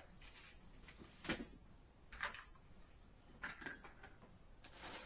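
Handling noises of fishing gear and its packaging: a few scattered short rustles and a sharp click or tap about a second and a half in.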